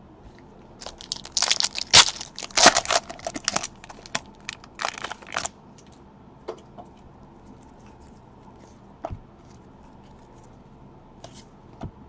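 Foil trading-card pack wrapper crinkling and tearing in the hands, in two bouts in the first half, then scattered light clicks of cards being handled.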